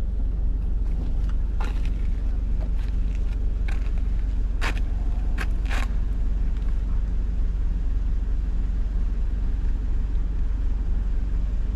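Van engine idling with a steady low rumble, with a few short sharp clicks in the first half.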